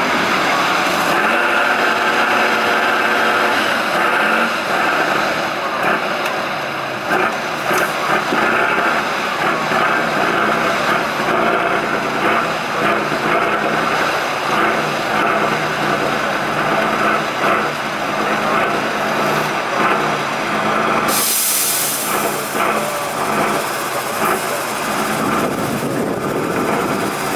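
Tatra 813 6x6 trial truck's diesel engine running as the truck works through a muddy pit, its level rising and dipping. About three quarters of the way through, a steady hissing noise joins it.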